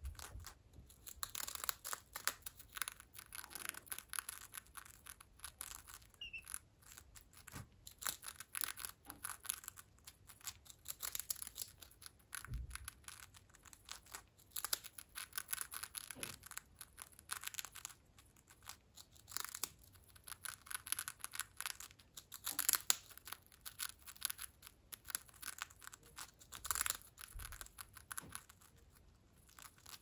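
A Senegal parrot biting and crunching a prawn cracker: rapid dry crunches and crackles that come in bursts with short pauses between.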